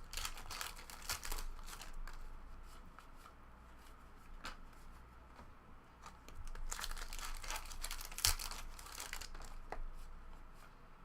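Trading card packs being torn open and their wrappers crinkled. The rustling comes in two spells, near the start and again from about six to nine and a half seconds in, with a few sharp clicks in between.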